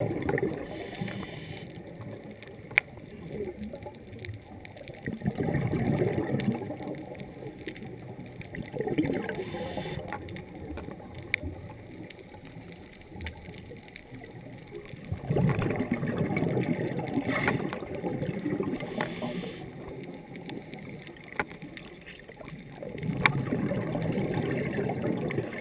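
A scuba diver's exhaled bubbles gurgle underwater in about five bursts of one to three seconds each, a few seconds apart, heard through a GoPro dive housing. Scattered sharp clicks sound between the bursts.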